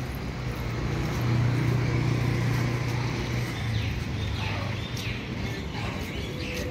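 Low, steady hum of a motor vehicle's engine running close by, swelling for a couple of seconds about a second in and then easing. Faint bird chirps come in near the end.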